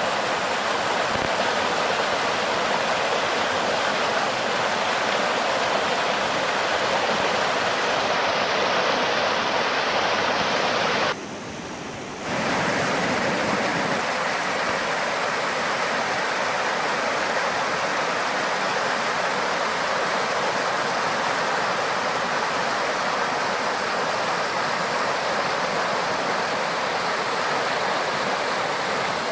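Mountain stream rushing steadily over rocks, a clear, strong flow of water. About eleven seconds in it drops suddenly quieter for about a second, then comes back.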